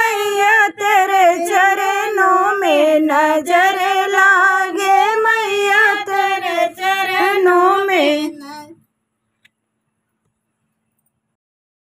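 A woman singing a devi pachra, a devotional folk song to the goddess, in held, wavering phrases. The singing stops about eight and a half seconds in, followed by silence.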